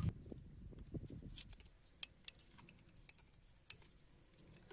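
Faint, scattered clicks and small taps from a small-engine carburetor and its parts being handled while a handmade gasket is fitted, with a few sharper clicks about two seconds in.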